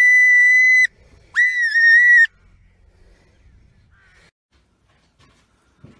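A ground squirrel giving loud, high whistled alarm calls: two held calls of about a second each, the second dipping and wavering in pitch.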